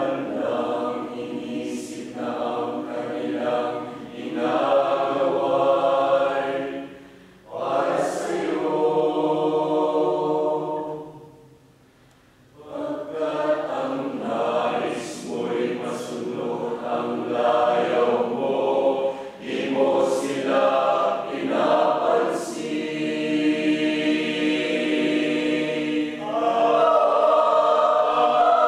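A mixed choir of men and women singing together, breaking off briefly about 7 seconds in and again around 12 seconds. It swells into a louder, higher passage near the end.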